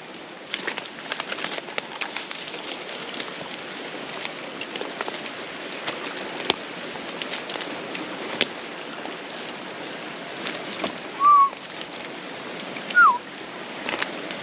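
Footsteps crunching through dry bark strips, sticks and leaf litter, with twigs cracking. Near the end come two short, loud whistled notes, the second falling in pitch.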